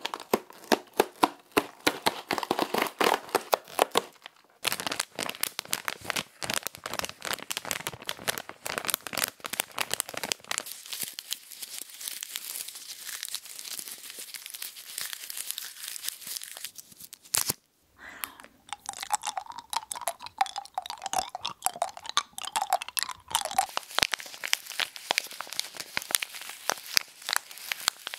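A run of close-up crinkling, crunching and tearing sounds that change every few seconds: a plastic cookie packet crinkled and torn, a handful of crinkly pieces crumpled and crunched, and near the end a tea bag packet handled.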